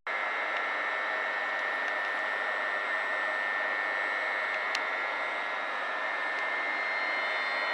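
Steady hiss of electric rail equipment under a station train shed, with a high, held whine over it.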